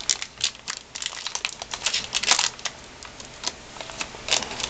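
Irregular clicks, taps and rustling of computer hardware and cables being handled while an SSD is fitted into a desktop PC case.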